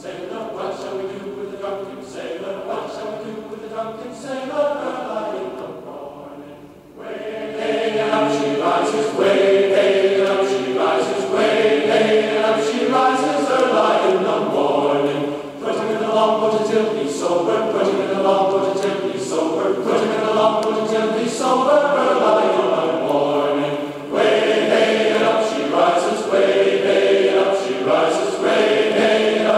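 Music with choir-like sustained voices playing from a BenQ treVolo S electrostatic portable speaker. It starts softly and becomes louder and fuller about seven seconds in.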